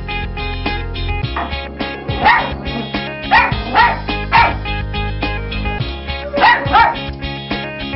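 A dog barking, about six short barks coming in twos and threes, over steady background music.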